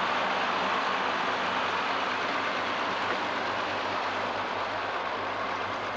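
Diesel engine of the Silver City Comet power car DP 101 idling while the train stands, a steady hissing engine noise with a low hum underneath.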